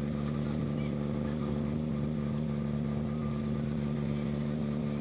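A boat's engine running steadily at constant speed, giving a low, even drone.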